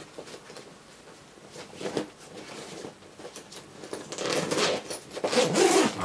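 A fabric sports bag being handled and shifted: faint clicks at first, then rustling and scraping that grows louder over the last two seconds.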